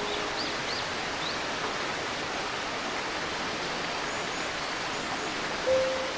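Steady murmur of a shallow river's flowing water, with a few faint bird chirps about a second in and again near the end. A soft piano note sounds just before the end.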